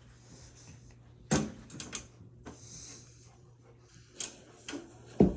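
Several scattered knocks and clicks, the loudest about a second in and another near the end, over a faint steady low hum.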